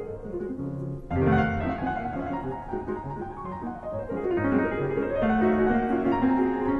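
Background piano music, a run of notes with a loud low chord struck about a second in.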